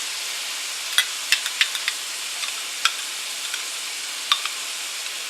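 Bacon, butter and onions sizzling steadily in a cast iron skillet, with about half a dozen sharp pops and clicks scattered through.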